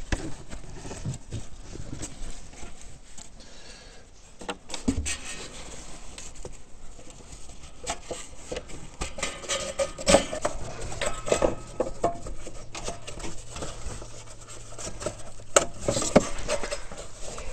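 Hard plastic and metal parts being handled and pulled loose: scattered clicks, knocks and rubbing as the factory CVT exhaust duct on an ATV is worked off by hand.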